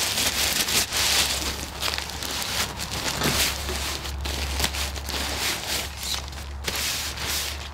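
Nylon tent fabric and stuff sack rustling and crinkling in irregular quick crackles as the rolled MSR Fast Stash tent is pulled out of its stuff sack by hand, over a low steady rumble.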